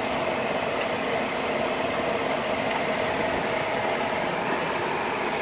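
Ford Fiesta's electric radiator cooling fan running with a steady whoosh on a cold engine, the sign of a faulty fan relay that keeps it switched on. A brief click sounds near the end.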